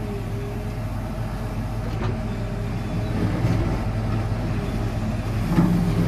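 Diesel engine of a JCB 4CX backhoe loader running steadily, heard from inside the cab, as the backhoe arm works in the trench. It gets a little louder about two seconds in and stays up as the hydraulics take load.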